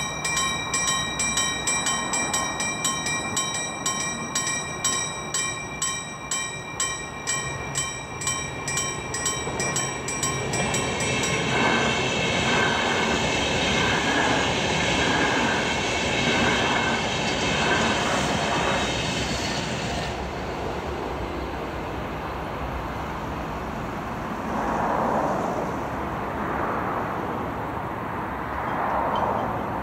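Level crossing warning bell ringing rapidly, about two strokes a second. Then a Finnish InterCity train, an Sr2 electric locomotive hauling double-deck coaches, rolls past over the crossing for about eight seconds with a dense rolling noise and a high steady hum. After it passes, a low rumble remains as the train recedes, with two swells near the end.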